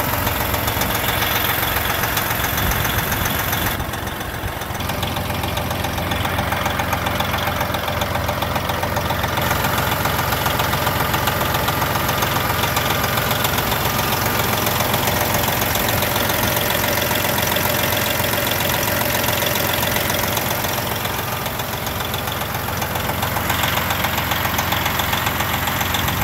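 The turbocharged Detroit Diesel engine of a 1999 Sterling A9522 truck idling steadily with diesel clatter, heard close up in the open engine bay.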